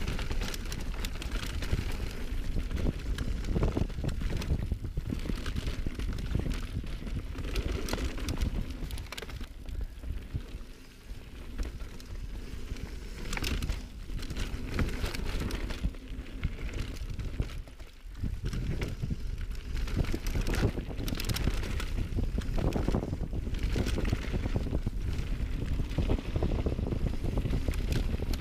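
Mountain bike being ridden over rough singletrack: tyres rolling and the bike clattering and rattling over the trail surface, with wind buffeting the microphone. The noise eases briefly twice.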